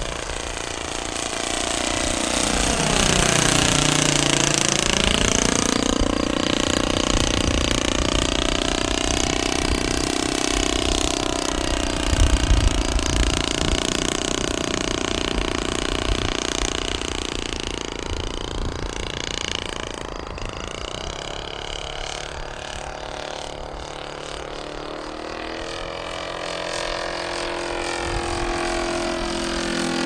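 Kolm 65 cc four-stroke engine of a large-scale RC Demoiselle model running in flight. Its pitch dips sharply and climbs back a few seconds in, then wavers up and down, and the sound fades somewhat past the twenty-second mark before growing louder again near the end.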